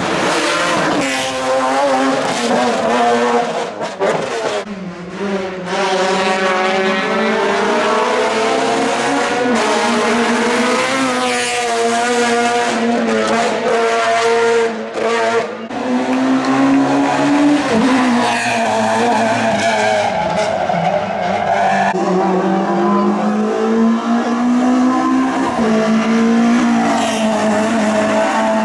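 Rally car engines revving hard through a bend, the pitch climbing through each gear and falling back on lifts and shifts, several times over as one car after another passes.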